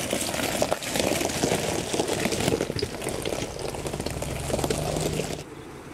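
Ford Bronco crawling slowly over a rocky gravel trail: tyres crunching and popping on loose stones over a low engine hum. The sound drops off abruptly near the end.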